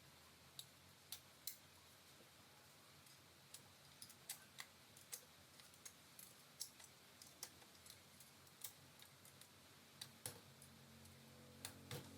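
Faint, irregularly spaced light clicks and taps of small parts being handled, over low room tone.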